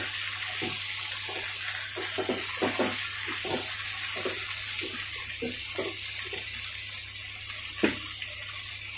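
Cauliflower, potato and tomato pieces frying in oil in a non-stick pan: a steady sizzle, with a wooden spatula scraping and knocking as it stirs them, and one sharper knock about eight seconds in.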